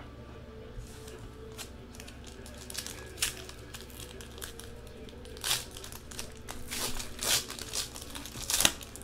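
A 2015 Panini Prizm football card pack wrapper being torn open and crinkled by hand: scattered sharp crinkles, getting busier in the second half.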